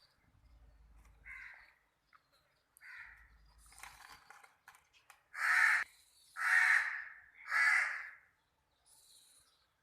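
A bird giving harsh calls: two softer ones, then three loud ones of about half a second each, spaced about a second apart.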